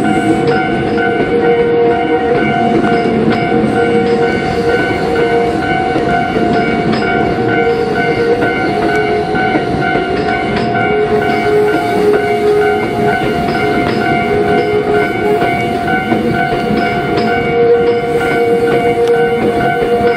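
Japanese level crossing warning bell ringing continuously as a train rolls across the crossing, with rumble and wheel clatter underneath: a Tobu 850-series set towing six 20000-series cars.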